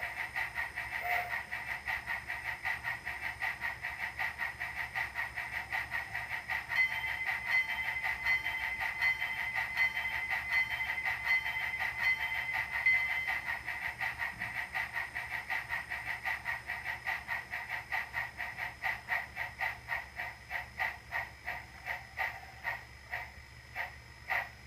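Sound-decoder steam chuffing from an Sn3 brass K-27 model locomotive's Tsunami DCC decoder, played through its small onboard speaker. The exhaust beats repeat evenly, then slow and thin out toward the end as the locomotive eases off.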